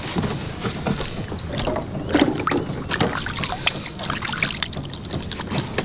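Irregular splashing and knocking of water and hands against a small wooden boat as a caught fish is handled and slipped back over the side into the water.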